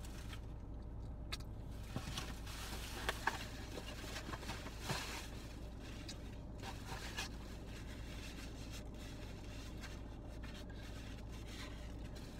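Eating in a car: soft chewing with a few crunches and rustles of a food wrapper, the sharpest about three seconds in and again near five seconds, over the steady low hum of the car's interior.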